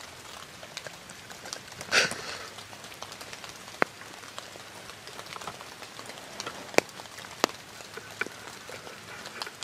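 Steady light rain falling on the woods, with single drops landing now and then as sharp taps. A short, louder scuffing noise about two seconds in.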